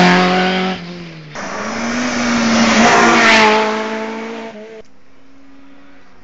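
Rally car engine revving hard at high speed, briefly lifting off about a second in with the pitch dropping, then pulling hard again and fading away about four and a half seconds in. A quieter steady engine hum remains afterwards.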